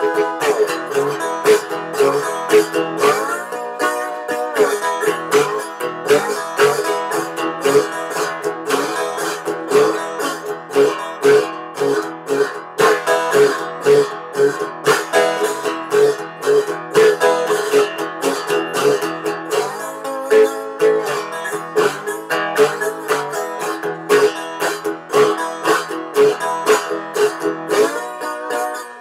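Resonator guitar played solo in a blues style: plucked notes and chords, with a few notes that glide up or down in pitch.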